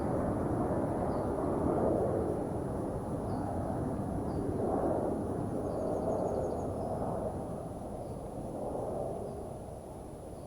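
Low rushing noise that swells and slowly fades away, with a few faint high bird chirps about halfway through.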